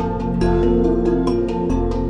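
Calm instrumental background music: a steady pattern of struck notes over a held low bass.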